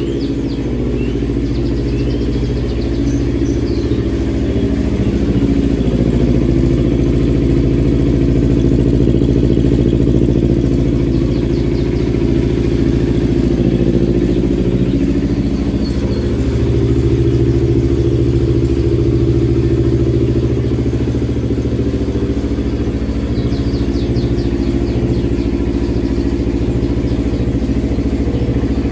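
Kawasaki Ninja 250 FI motorcycle's parallel-twin engine running steadily at low revs through its stock exhaust, a smooth, not noisy note that swells slightly a couple of times.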